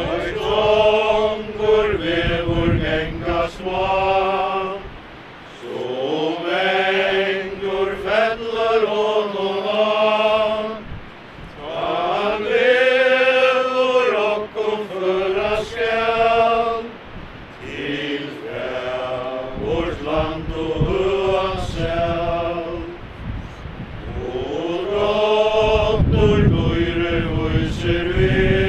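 A group of mourners singing a hymn together at a graveside, slow phrases of held notes with short pauses between them. Wind rumbles on the microphone near the end.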